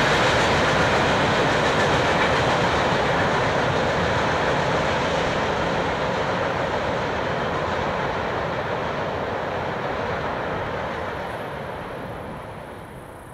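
Freight train cars rolling past at track speed: a steady rush of steel wheels on rail that gradually fades, dropping away over the last couple of seconds as the train goes by.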